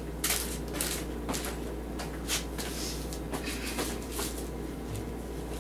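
A string of short rustles and knocks as someone moves about and sits down, over a steady low hum.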